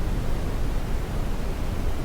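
Steady, even noise, heavier in the low end than the highs, with no tones or breaks: a synthesized sleep noise in the pink-noise range, played as a baby-sleep aid.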